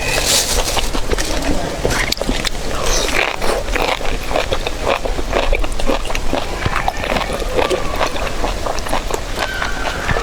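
Eating sounds: chewing and biting, with many short clicks and scrapes from chopsticks and bowls, over a steady outdoor background.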